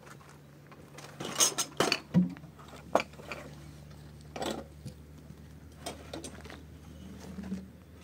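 Irregular knocks and clinks of hard household objects being handled, loudest in a cluster about one and a half to two seconds in, over a faint low steady hum.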